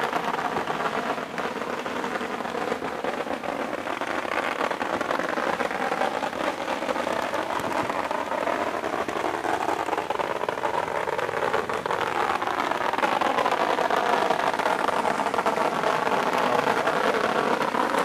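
Strings of firecrackers going off in a dense, continuous crackle, over the murmur of a crowd, growing a little louder about two-thirds of the way through.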